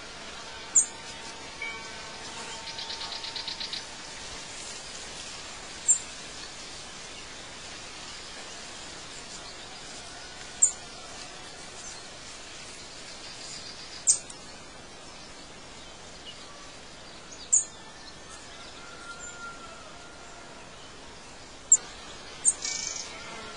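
Outdoor nature ambience: a steady hiss with short, sharp high-pitched bird chirps every three or four seconds, two in quick succession near the end, plus faint whistled bird notes and a brief rapid buzzing trill a few seconds in.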